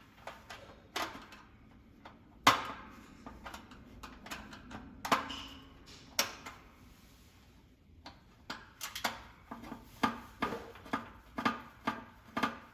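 Hand screwdriver and loose metal parts clinking and knocking against a metal heater's sheet-metal case as the screws holding a handle are worked out. There are scattered clicks with a sharper knock about two and a half seconds in, then a quicker run of clicks over the last few seconds.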